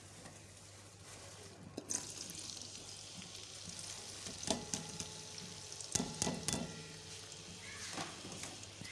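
Sliced onions frying in hot ghee in a steel kadhai: a steady sizzle that starts about two seconds in as the onions go into the pan, with a few sharp clicks from the spoon stirring against the pan partway through.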